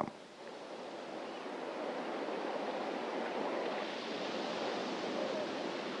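Steady rushing of sea water at the surface, fading in over the first second or two and then holding even.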